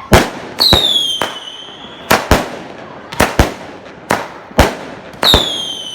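Fireworks going off: about a dozen sharp, irregular bangs. Two whistling shells each give a falling whistle lasting over a second, one about half a second in and one near the end.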